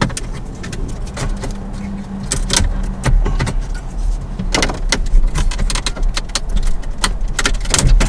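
Sharp plastic clicks and scrapes, a dozen or so at uneven intervals, as the upper dash trim panel around a 2007–11 Toyota Camry's centre vents is pried at with a plastic trim tool and its clips work loose, over a steady low rumble.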